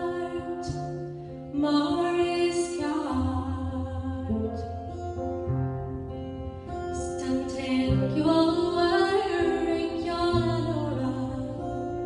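A woman singing a slow ballad in Irish into a microphone, her voice wavering on long held notes, over an instrumental accompaniment of sustained bass notes that change every second or two.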